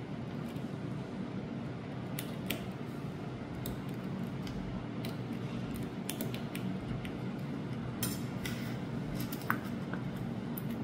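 Small, sharp metallic clicks and scrapes of steel tweezers working around the button-cell battery in an open quartz watch movement, scattered irregularly over a steady low hum, with a sharper click about nine and a half seconds in.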